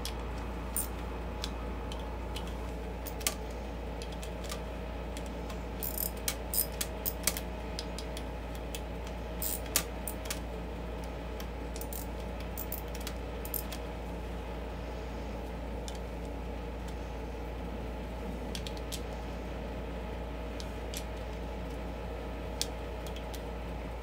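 Socket ratchet clicking in short runs and metal tool taps as bolts at a dirt bike's wheel hub are snugged down. A steady low hum runs underneath.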